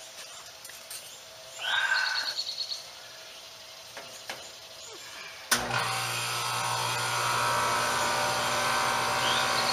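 A brief bird chirp about two seconds in; then, past halfway, a sharp click and a steady rushing hiss begins and holds: a hand-held brazing torch lit and burning on the copper line-set joint at the condenser's service valve.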